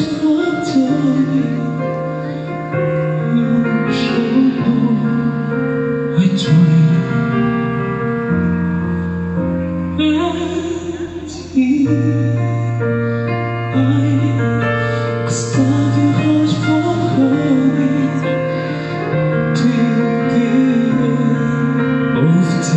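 Live band playing a slow song with a singer's voice over keyboards, guitars and drums, heard from the crowd in a large arena. The music thins out briefly and swells back in about twelve seconds in.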